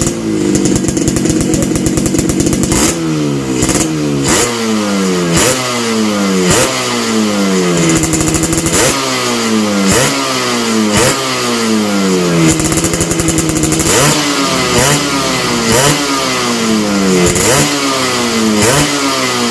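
Yamaha RX-King's two-stroke single-cylinder engine, fitted with a gutted stock exhaust meant to give a crisp, raspy 'garing ngorok' note. It idles for about three seconds, then is blipped over and over, roughly once a second, each rev falling back in pitch.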